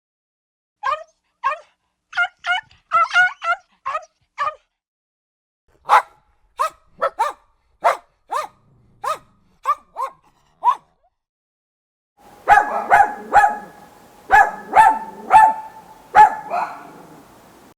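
Small dogs barking in three separate runs: quick high yips in the first few seconds, then single sharp barks about twice a second, then a flurry of barks over a steady background hum near the end.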